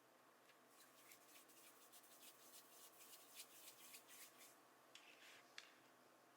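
Faint rapid rubbing and scraping of hands working Play-Doh, a quick run of strokes for a few seconds, ending with a couple of small sharp clicks.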